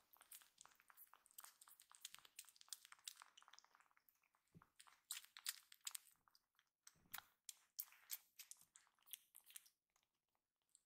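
Faint, rapid wet clicks and smacks of newborn kittens sucking and mouthing a person's fingers, with a few soft thumps as they shift in the hands.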